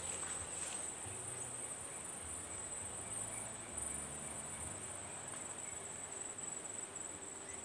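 Steady high-pitched chorus of insects in tall grass and brush, one unbroken shrill tone.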